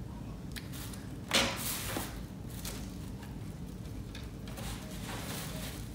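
Metal tripod light stand being unfolded and set up: scattered clicks and clacks from its legs and sections, with one louder knock and scrape about a second and a half in.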